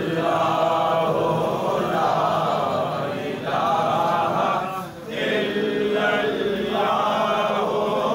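A group of men chanting religious phrases together in unison, in long held phrases with brief breaks between them.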